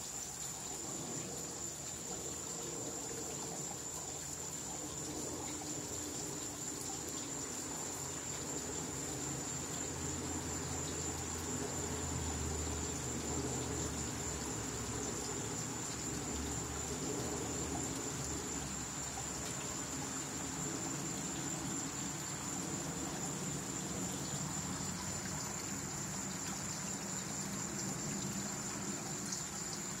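Steady trickling of a garden pond's water feature, with a thin steady high tone over it. A low rumble swells about ten seconds in and fades several seconds later.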